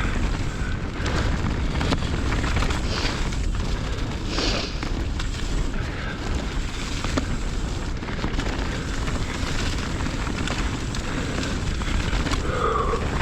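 Wind rumbling over a mountain biker's camera microphone during a fast trail ride, with tyres rolling over dirt and gravel and frequent small knocks and rattles from the bike over rough ground.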